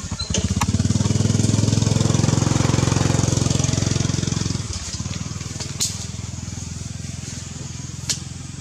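A small engine running with a fast, even pulse swells up and then fades away about halfway through. A steady high hiss continues underneath, with a couple of sharp clicks in the second half.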